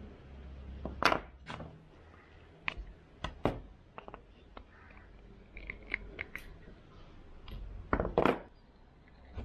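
Irregular sharp clicks and knocks from handling wooden mould blocks on a workbench and snipping at the paper on one with side cutters. The loudest knocks come about a second in and near the end, with a run of lighter clicks in between.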